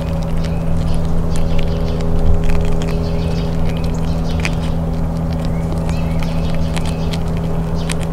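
Grey squirrel nibbling a peanut, with small scattered chewing clicks, over a steady machine hum.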